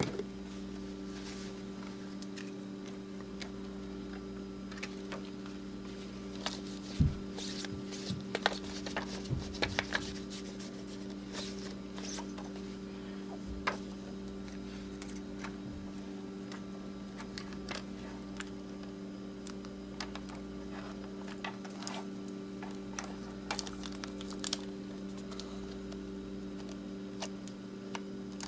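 Scattered small clicks and light rustles of thin LCD screen layers and a cleaning cloth being handled, grouped in two spells, about a quarter and three quarters of the way through, over a steady low electrical hum.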